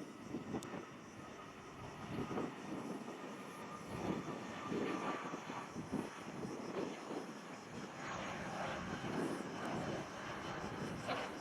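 Airbus A320 jet airliner's engines on landing approach: a steady jet noise with faint high whining tones, its low rumble surging unevenly.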